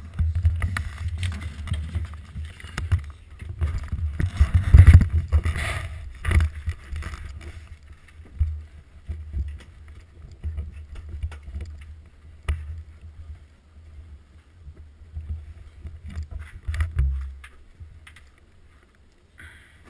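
Bobsleigh being handled and shifted on the ice at the start, heard through a camera mounted on the sled: a low rumble with irregular knocks and bumps, loudest about four to five seconds in, then quieter with a last few knocks near the end.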